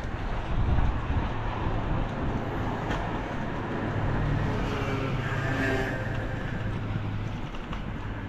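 Car driving along a road: steady engine hum and road noise, with a brief higher tone a little past halfway.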